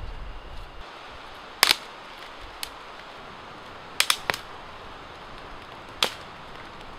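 Campfire of dry twigs burning with a steady hiss and sharp crackling pops: one about a second and a half in, a fainter one a second later, a quick run of three around four seconds, and one more near six seconds. A low rumble fills the first second.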